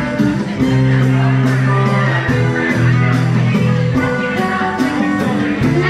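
Live band playing a rock song: acoustic guitar and drum kit over held low notes that change every second or so, with cymbal strikes on a steady beat.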